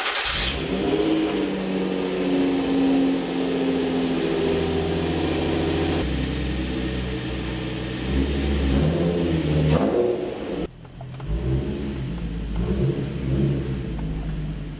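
Infiniti G35's 3.5-litre V6 with an aftermarket exhaust firing up on a cold start, then idling steadily at a raised cold idle. About eleven seconds in there is a break, and the engine is then heard idling from inside the cabin.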